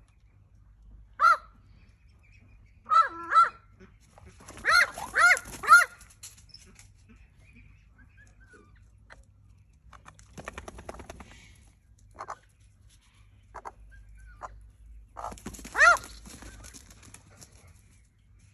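Australian magpie giving short calls in groups: one, then two, then a quick run of three or four, and a last one near the end. About ten seconds in comes a stretch of scuffling.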